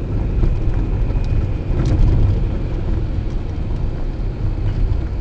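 Steady low rumble of a car driving in city traffic, heard from inside the cabin, with a couple of faint clicks.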